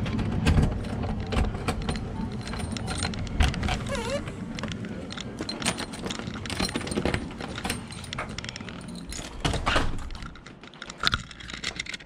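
Close camera handling noise: irregular knocks, clicks and rustles as the camera is carried along, with keys jangling.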